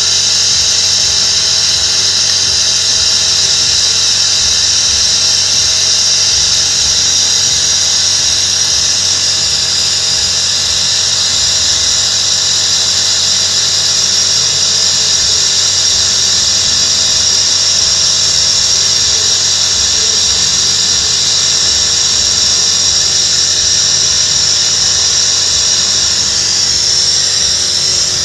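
Carbureted car engine running with the air cleaner removed: a loud, steady hiss of air drawn through the open carburetor over a steady lower hum, during an engine flush (gurah) to clean carbon from the engine.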